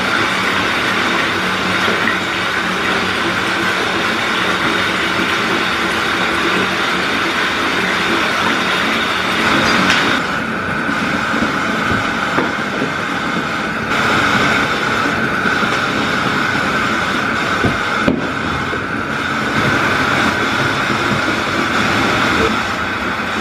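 Steady rushing noise of a moving vehicle, with small shifts in level a few times.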